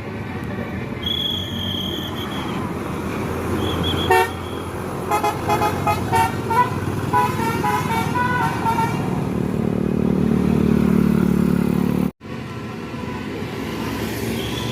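Tour bus sounding a basuri-style telolet multi-tone horn, a string of short notes hopping between pitches in a little tune, over the bus engine. The engine rises as the bus pulls away, and the sound cuts off suddenly about 12 seconds in.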